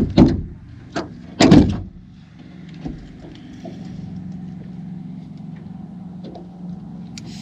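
Three sharp knocks in the first two seconds, the last the loudest, over a steady low engine hum.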